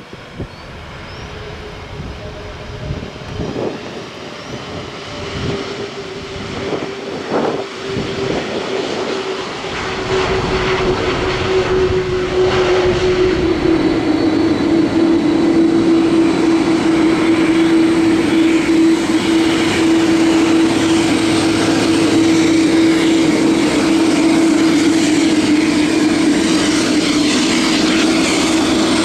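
Airbus A330-200's twin turbofan engines (GE CF6-80E1) at taxi power, growing louder as the airliner taxis closer, then holding steady and loud. A steady engine whine runs through it and drops slightly in pitch about halfway through.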